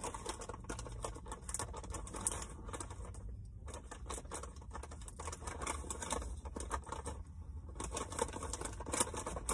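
Hands handling small objects and packaging: irregular light clicks, taps and rustles, over a low steady hum.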